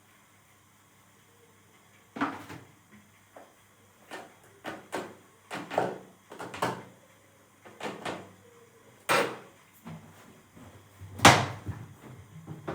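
A series of irregular knocks and clunks, like cupboard doors and household things being handled and set down, the loudest about nine and eleven seconds in.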